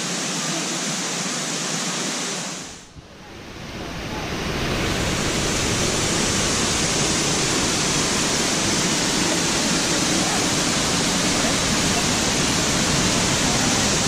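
Steady rushing of a waterfall. It fades away briefly about three seconds in and comes back louder and fuller.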